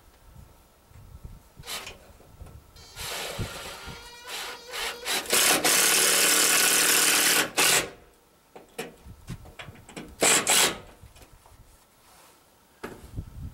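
Cordless drill driving a screw into a log: a loud steady run of about two seconds, then a second short burst a couple of seconds later, with scraping and rubbing around them.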